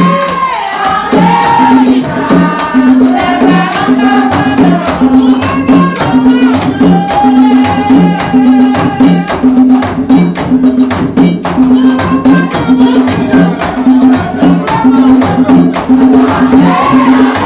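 Vodou ceremonial music: group singing over a low, evenly repeating two-note drum pattern, with sharp shaken and struck percussion.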